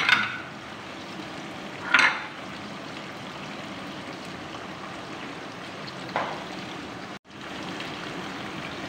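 Chicken pieces sizzling in hot oil in a pan: a steady frying hiss, with a few short sharp knocks about two and six seconds in. The sound breaks off for an instant about seven seconds in.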